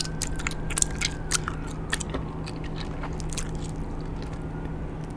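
Mouth chewing Big League Chew bubble gum, with wet clicks and smacks coming quickly for the first two seconds, then more sparsely, over a low steady hum.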